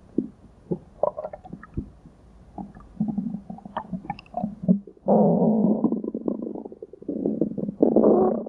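Cartoon stomach-growling sound effect: scattered short gurgles, then a long, loud growl starting about five seconds in.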